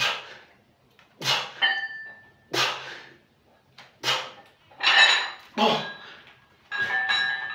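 Four sharp, forceful exhalations, about one every 1.3 seconds, on the repetitions of a standing overhead barbell triceps extension, with the iron weight plates clinking. About five seconds in the barbell is lowered and set down, its plates clanking and ringing.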